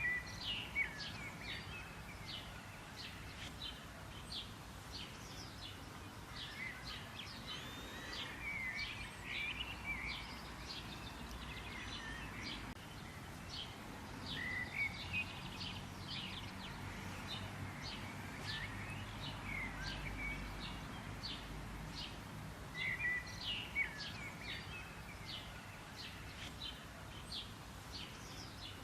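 Many small birds chirping and calling together in a dense run of short, quick chirps, with a few brief sweeping notes, over a low steady rumble.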